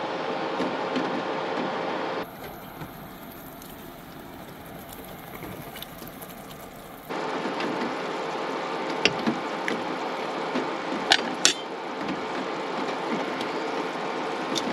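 Steady hiss of rain, with a quieter stretch from about two to seven seconds in and a few sharp clicks near the middle.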